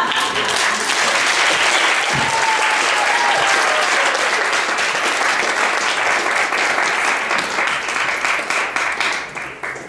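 Audience applauding with many hands clapping, the applause fading away near the end.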